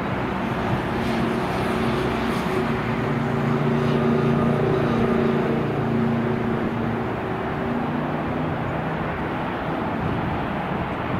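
Boeing 777-300ER's GE90 turbofan engines at takeoff thrust during the takeoff roll, heard from a distance: a steady jet noise with a low hum that swells a little about four to five seconds in.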